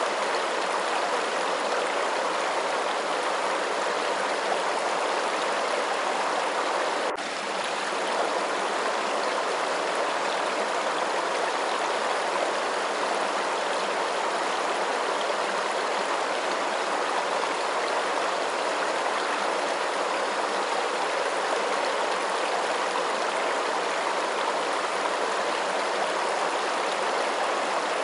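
Running water making a steady, even rush like a stream or small cascade, with a brief dip in level about seven seconds in.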